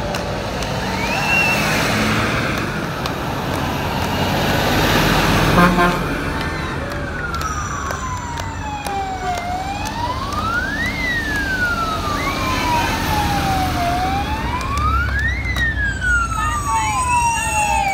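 Heavy fire engines rumbling past, and from about six seconds in a fire engine siren wailing in slow sweeps, falling and rising over several seconds each. Near the end a second siren joins with a quicker wavering tone.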